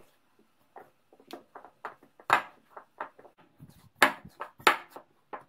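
Hand kneading a stiff yeast dough in a ceramic bowl: irregular soft pats and presses, with a few louder knocks against the bowl, the first about two seconds in.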